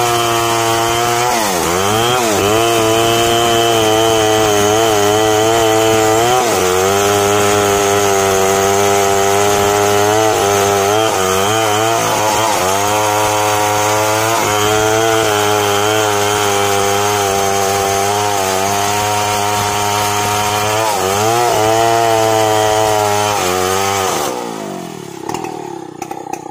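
Large petrol chainsaw with a long bar cutting into a big mahogany trunk at full throttle, its engine note dipping and recovering again and again as the chain bogs in the wood. About two seconds before the end the throttle is let off and the engine falls away to a lower, quieter run.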